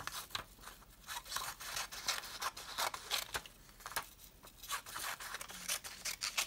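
Scissors cutting through a folded sheet of A4 paper: a quick, irregular run of snips as several long strips are cut one after another.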